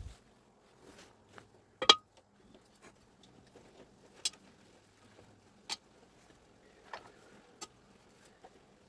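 Sparse clicks and light knocks of tools and parts being handled during a power-tool repair, about seven separate strikes, the sharpest about two seconds in.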